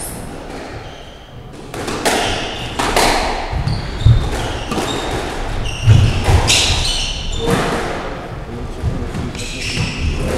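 Squash rally in a reverberant court: the ball is struck by the rackets and thuds off the walls, with the players' footsteps and shoe squeaks on the wooden floor. The rally starts about two seconds in, and the hardest hits come about four and six seconds in.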